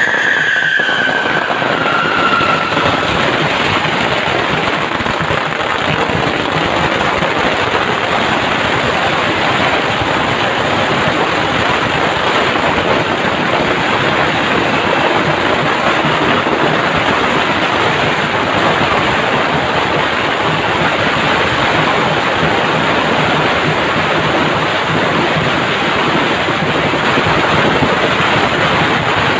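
Strings of firecrackers going off in one continuous, dense crackle without a pause. A short falling tone sounds over it in the first couple of seconds.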